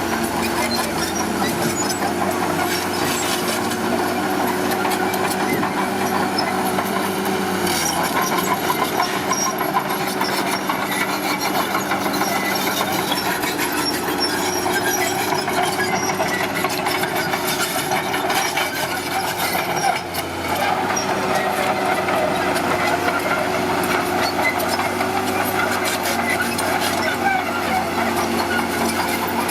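Diesel engine of a heavy earthmoving machine running steadily under work, with a short dip in level about 20 seconds in.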